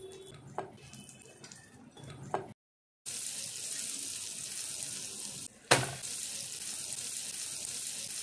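Egg batter and butter sizzling in a hot flat pan, a steady hiss that gets louder after a cut about three seconds in. A couple of light clicks come in the first few seconds, and one sharp knock, the loudest sound, comes nearly six seconds in.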